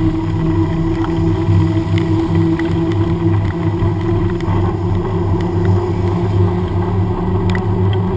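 Steady low drone of a bicycle rolling on a wet road, the bike-mounted camera picking up the knobby tyre's hum and the ride's vibration, with light scattered ticks and rattles.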